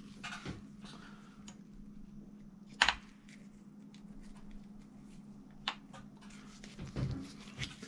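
Gloved hands handling small metal chainsaw engine parts: a sharp click about three seconds in, a fainter one near six seconds and a few soft knocks near the end, over a steady faint hum.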